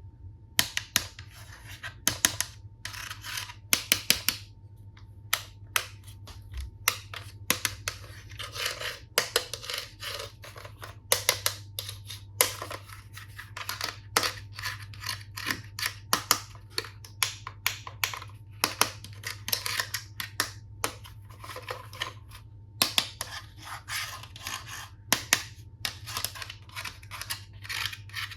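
Hands handling plastic toy tool pieces and packaging: irregular sharp clicks, taps and scratches, several to a second, with short pauses, over a faint steady hum.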